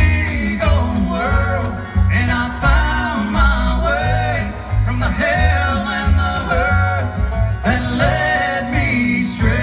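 Live bluegrass band playing: banjo, upright bass, mandolin and acoustic guitar under a sung lead melody, with the bass plucking a steady pulse.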